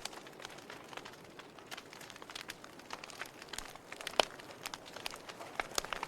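Wood fire burning in a fireplace, crackling with irregular sharp pops over a steady hiss; the loudest pop comes about four seconds in.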